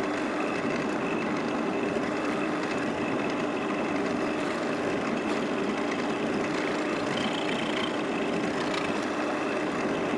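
Drill press motor running steadily, an even hum with no change in speed or load.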